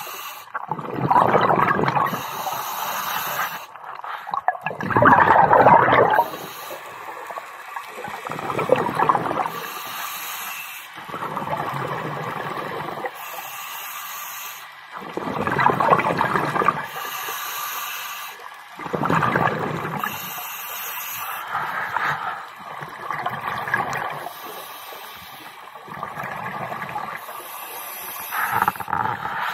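Scuba diver breathing through a regulator underwater: a burst of exhaled bubbles every few seconds, alternating with the higher hiss of each inhalation.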